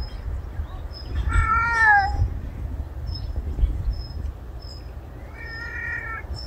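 Stray cat meowing twice, long mournful meows: one about a second and a half in that falls in pitch at its end, and another near the end.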